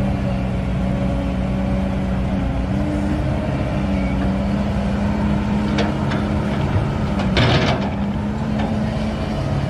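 Kobelco excavator's diesel engine running steadily under load while it digs and loads soil, its pitch shifting slightly. There are two sharp knocks about six seconds in, then a short rush of noise about a second and a half later.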